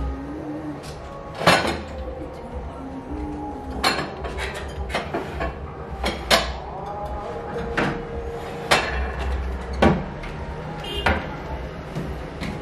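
Kitchen wall-cupboard doors opening and shutting while a glass bowl is lifted off the shelf and set down. It makes an irregular string of sharp knocks and clinks, the loudest about one and a half seconds in and again around six, nine and ten seconds.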